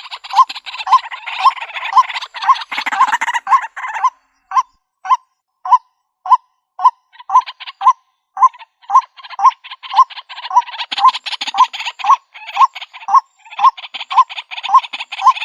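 White-breasted waterhen calling: a repeated note about two to three times a second, mixed with harsh chattering. The chatter thins out about four seconds in and comes back thickly about eight seconds in.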